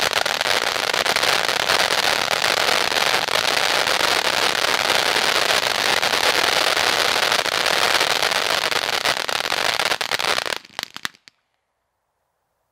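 'Amazing' firework cake firing its finale: a dense, unbroken crackle of countless small pops from its crackling stars. It stops abruptly about ten and a half seconds in, after a few last scattered pops.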